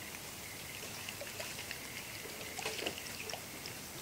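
Small river rapid running steadily, a faint even rush of flowing water, with a few faint short ticks in the second half.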